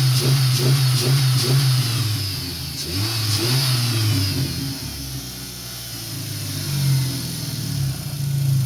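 2003 Dodge Neon 2.0-litre four-cylinder engine with an SRT exhaust, revving with quick repeated throttle blips in the first couple of seconds, then easing off and settling back to a steady run near the end. It runs on all four cylinders again now that the failed aftermarket MSD ignition coil, which had left two cylinders dead, is replaced with the original coil.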